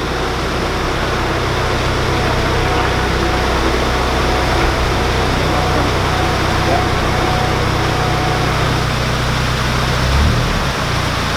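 Narrowboat diesel engine idling steadily, revving up briefly about ten seconds in.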